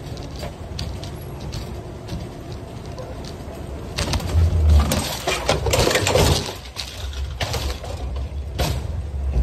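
Shopping cart wheels rolling on a hard floor, then a loud clatter and rattle about four seconds in as the cart enters the cart escalator and its wheels catch in the chain conveyor; after that the conveyor runs with a low steady rumble as it carries the cart up.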